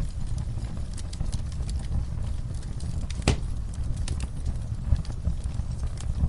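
Wood fire crackling in a fireplace: a steady low rumble of flames with scattered pops and snaps, and one louder pop about halfway through.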